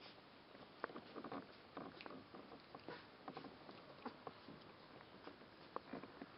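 Faint scattered small sounds of twelve-day-old Rhodesian Ridgeback puppies wrestling: brief squeaks and snuffles mixed with paws scrabbling on fleece bedding.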